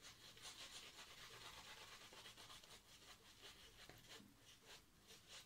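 Faint, repeated swishing strokes of a shaving brush scrubbing shaving-soap lather onto a face.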